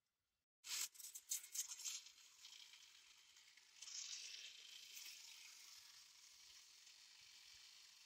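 Table-mounted circular saw cutting through a wooden board: a sudden start of crackling about a second in, settling into a steady hiss that swells slightly partway through the cut.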